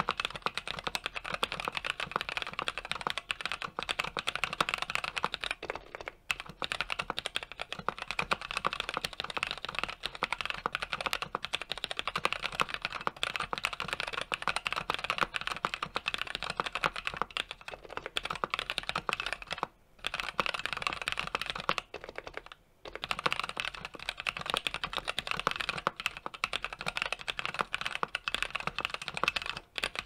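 Fast, continuous typing on a custom 60% mechanical keyboard: brand-new, unlubed stock NovelKeys Cream linear switches on a brass plate in a foam-filled aluminium case, with Cherry-profile keycaps. Rapid keystrokes with a few brief pauses.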